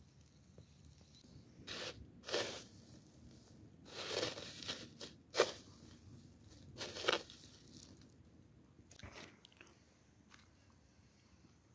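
Dry breadcrumbs crunching and rustling under fingers as a piece of chicken is pressed and rolled in them to coat it. There are several short bursts in the first two-thirds, then it goes quieter.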